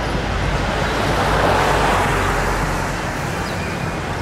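Steady outdoor background noise with a low rumble, swelling a second or two in and then easing off.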